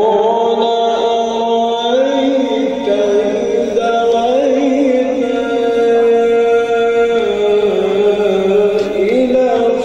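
A man's voice singing Egyptian religious chant (inshad), holding long drawn-out melismatic notes that waver and step up and down in pitch.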